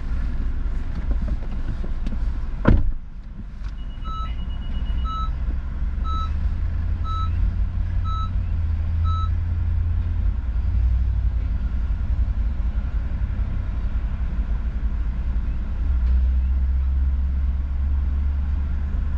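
Low steady vehicle rumble. A single loud thump comes about three seconds in, then an electronic beeper gives six short beeps about a second apart.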